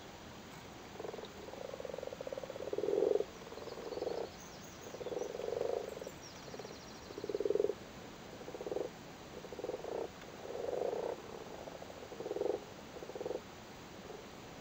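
Several male common frogs croaking in a breeding chorus from the water, a low purring croak repeated about once a second in overlapping calls of half a second to a second each. It is the mating call of males gathered at their spawn.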